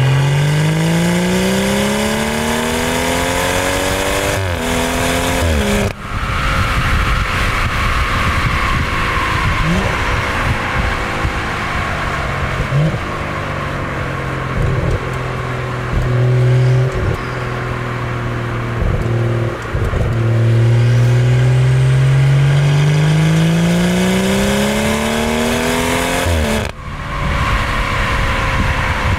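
BMW M140i's turbocharged straight-six through an Akrapovic Evolution Line exhaust with no petrol particulate filter, heard at the tailpipe while driving. The exhaust note climbs in pitch under acceleration, breaks off and drops sharply about six seconds in and again near the end, and runs steadier in between.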